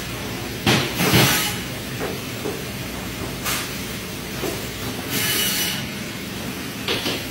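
Raw chicken being torn and cut apart with a boning knife on a plastic cutting board: short rasping, hissy scrapes of the knife and tearing skin and joints, with a low thud about a second in, over a steady low hum.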